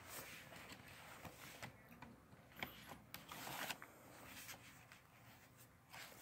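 Faint handling noise: light rubbing and rustling with a few soft clicks, a little louder about two and a half seconds in and again around three and a half seconds in.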